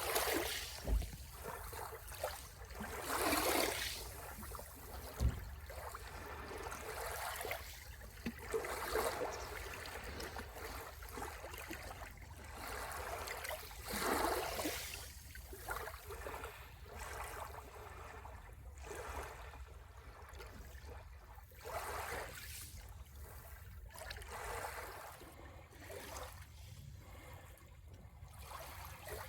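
Sea waves washing ashore: a surge of water noise every few seconds that swells and falls away, over a steady low rumble.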